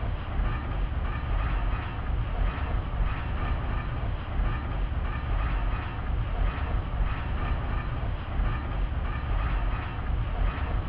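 Minimal synth-punk instrumental: a dense, noisy electronic texture with a steady mechanical pulse and no vocals.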